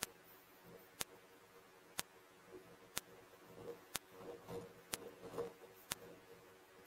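Faint sharp ticks, evenly spaced about once a second, with soft, faint rustling between them in the second half.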